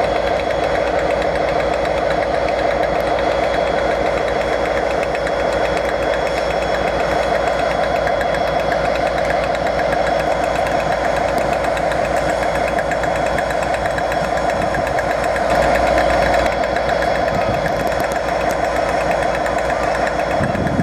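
Diesel train engine idling steadily, with a slight swell about fifteen seconds in.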